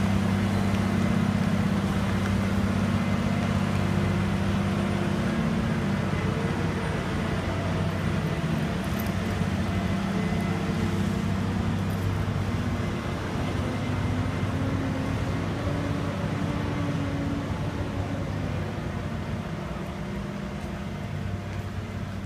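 Scania 730 heavy-haulage tractor unit's V8 diesel running steadily as it pulls away, a low drone that slowly fades as it moves off. Escort vehicles drive past after it, their engines and tyres on the wet road adding to the traffic noise.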